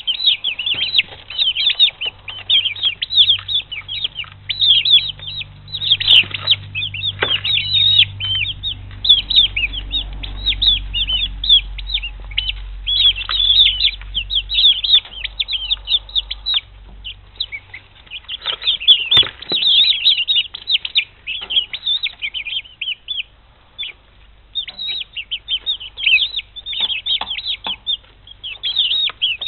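Young chicks, about six weeks old, peeping continuously: many short high cheeps overlapping, in quick flurries with brief lulls. A few scattered knocks and some low rumbling sit beneath them.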